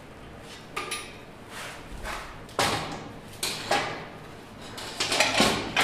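Metal clunks and scrapes as an electric motor on its metal mounting bracket is worked into place in a metal ATV frame for a test fit: a series of irregular knocks with scraping between them, louder in the second half.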